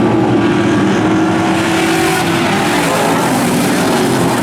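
Street stock race cars' engines running hard on a dirt oval, several engines at once with their pitch rising and falling slightly.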